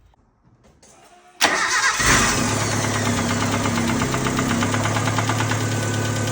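1988 Mitsubishi Mighty Max pickup engine starting. About a second and a half in, the starter cranks it briefly, it catches within about half a second, and it settles into a steady idle.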